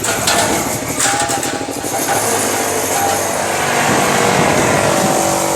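A motor vehicle's engine running steadily close by, with a rapid pulsing beat.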